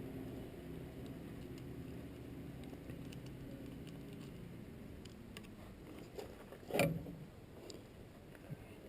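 Metal parts of a windshield installation tool being handled and fitted, with scattered light clicks and one sharp clank about seven seconds in, followed by a few smaller knocks. A low steady hum sits underneath and fades during the first half.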